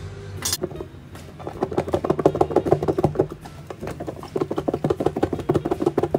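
Squid rings and cornstarch being shaken hard inside a covered plastic food container, a rapid rhythmic rattling and knocking with a short break midway. It is preceded by a sharp click as the lid is latched shut.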